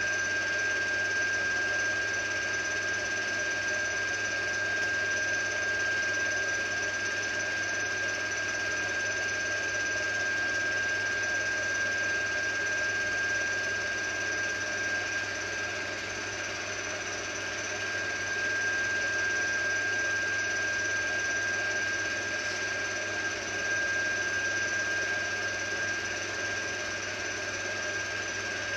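16mm film projector running: a steady mechanical whir with a constant whine.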